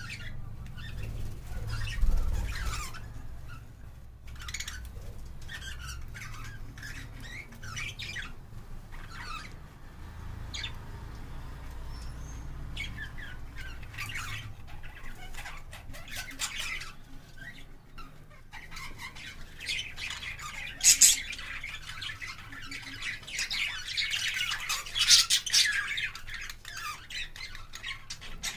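Pet budgerigars chirping and squawking in short, scattered calls that become busier and louder in the second half. A low rumble sits under the first half.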